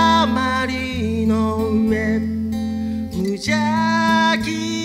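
Small band playing live: strummed acoustic guitars and electric bass under a sung lead vocal of long, held notes, with a short break in the voice about three seconds in.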